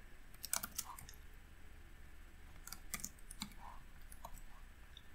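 Faint keystrokes on a computer keyboard: scattered clicks, with small flurries about half a second in and about three seconds in.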